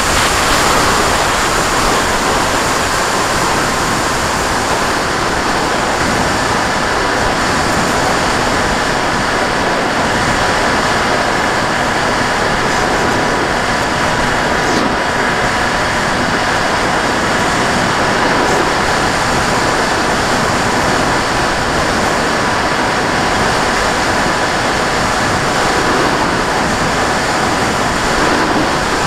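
Steady rush of wind and propeller noise from a camera riding on a flying radio-controlled model airplane, with a faint steady whine running under it.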